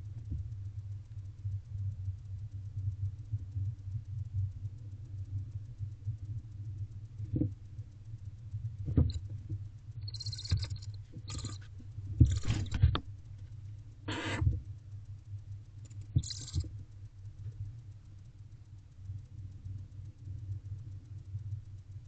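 Barn owlets giving several short, raspy hisses a second or two apart about halfway through, over a steady low electrical hum. A couple of soft knocks come a little before the hisses.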